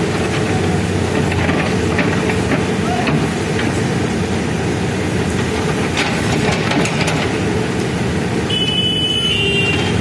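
Manitou backhoe loader's diesel engine running steadily as the backhoe arm moves, with scattered sharp knocks. A high steady tone sounds for about a second and a half near the end.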